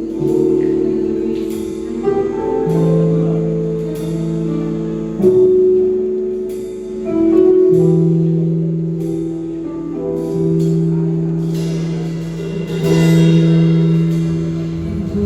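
Instrumental music: held chords that change every couple of seconds, with light percussion ticking over them.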